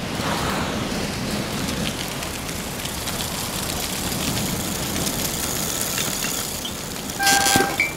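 Steady whirring hiss with scattered light clicks as paper pinwheels spin and gears turn. Near the end comes a short, louder horn toot on one held note.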